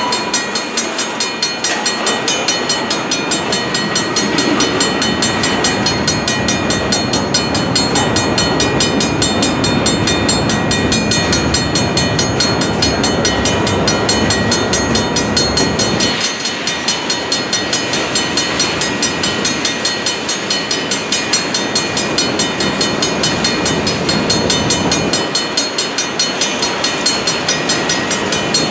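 Freight train of covered hopper cars rolling past: a steady rumble and clatter of steel wheels on the rails, with a fast, regular clicking.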